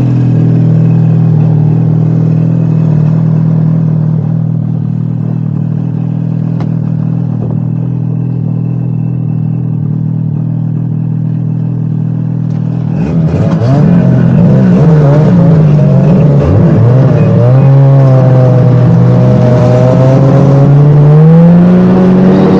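Snowmobile engine running at a steady speed. A little past halfway its pitch starts swinging up and down as the throttle changes, and it climbs near the end.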